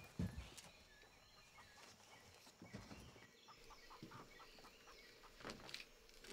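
Near silence: quiet room tone with a few soft knocks and faint, distant fowl calls.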